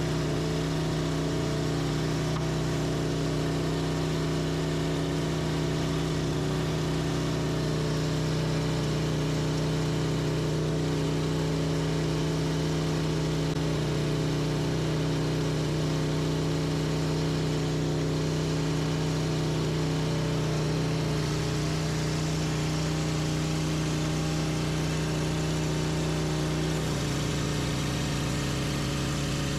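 Sawmill engine running steadily while sawing a hemlock log, with a slight drop in pitch near the end.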